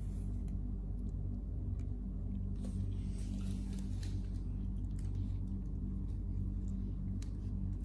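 Kittens tussling on a blanket in a plastic basket: soft rustling of fur and fabric with a few small clicks, over a steady low hum.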